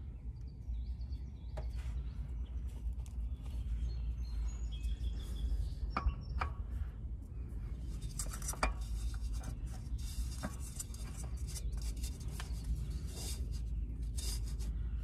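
A new Fram spin-on oil filter being handled and fitted by hand onto its mount: scattered light clicks, clinks and scrapes of metal, with a few sharper knocks, busier in the second half, over a steady low rumble.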